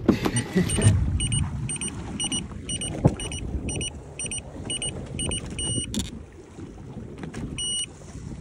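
Electronic warning beeps from a bow-mounted electric trolling motor: a quick run of short high beeps, about three a second, for several seconds, then a longer single beep twice. It goes with the motor's low-battery warning coming on even though the battery reads 100%.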